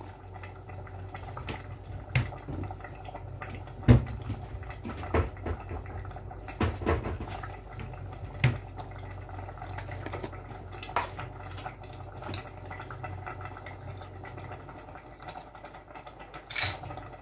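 Cassava leaf sauce bubbling in a stainless steel pot, with irregular pops over a steady low hum. The sharpest pop comes about four seconds in.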